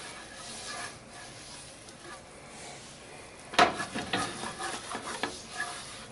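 Silicone whisk stirring a butter-and-flour roux in a nonstick skillet: soft scraping over a faint sizzle. About three and a half seconds in there is one sharp knock, followed by a few lighter taps.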